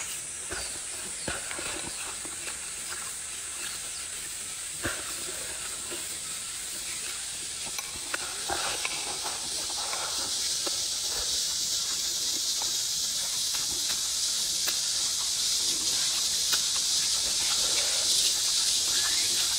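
A steady high-pitched hiss that grows louder about halfway through, with scattered soft clicks and smacks of eating, chewing and chopsticks on fish.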